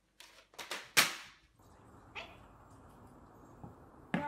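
A cat scrambling into an open kitchen cabinet: a few quick knocks and rustles, the loudest a sharp knock about a second in that rings briefly. After that comes a steady low outdoor hiss, with a click and a sharp hit near the end.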